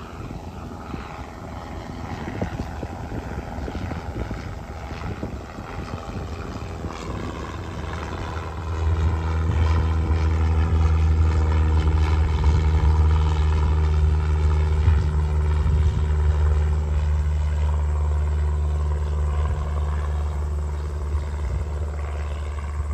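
Cessna 152's four-cylinder piston engine and propeller climbing out after a touch-and-go: a steady drone that becomes much louder about nine seconds in as the plane comes closest, then slowly fades as it flies away.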